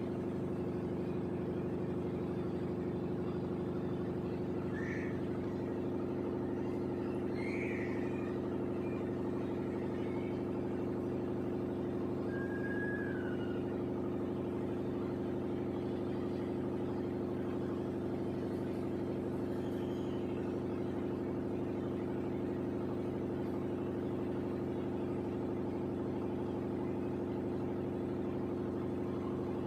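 LG 7 kg top-load washing machine spinning its drum steadily in the air-dry cycle, a constant mechanical hum.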